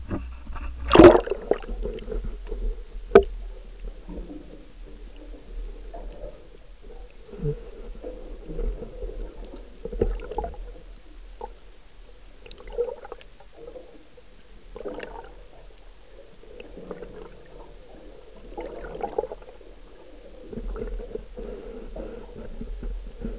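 A small camera plunging into the sea, with a loud burst of splashing about a second in and a sharp knock a couple of seconds later. The rest is muffled underwater gurgling and sloshing, with irregular knocks over a steady low rumble.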